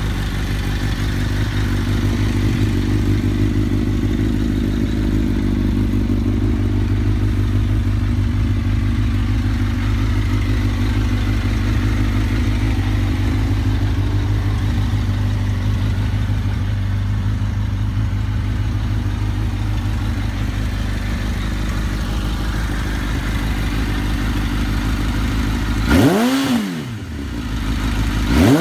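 Suzuki GSX-R1000 K1's inline-four engine idling steadily through an Arrow aftermarket exhaust, then blipped near the end, the pitch rising and falling back.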